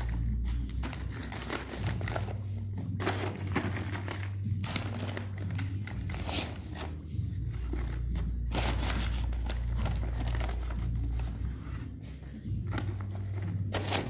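Dry powdered mix being scooped from a sack into a bucket, with the sack crinkling and rustling and the powder scraping in irregular strokes throughout, over a steady low hum.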